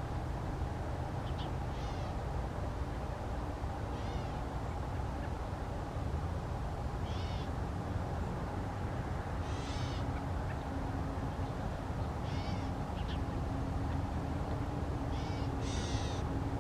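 Gray catbird giving its nasal, catlike mewing calls: several short calls, spaced a few seconds apart.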